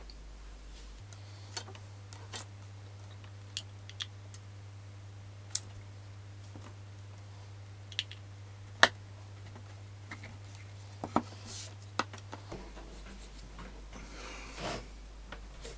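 Scattered small clicks and taps of hands working on loudspeaker parts, with a few brief rustles and a steady low hum underneath.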